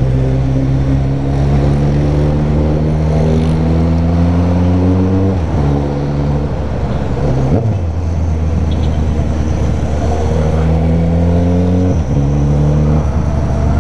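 Motorcycle engine pulling under steady acceleration, its note rising slowly and dropping sharply at gear changes about five seconds in, near eight seconds and near twelve seconds, over a steady rush of wind.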